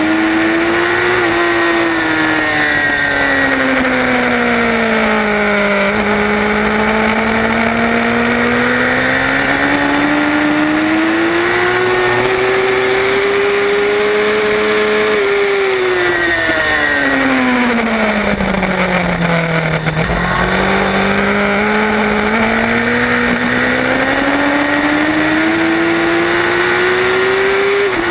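Racing motorcycle engine heard from on board at high speed, its revs climbing and falling smoothly as the rider rolls off and back on the throttle through corners, with one quick upshift near the end. Heavy wind rush runs under the engine.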